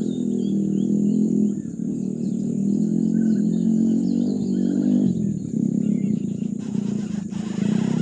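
A steady low engine-like drone with small birds chirping in the background; about two-thirds of the way in, a loud high hiss joins.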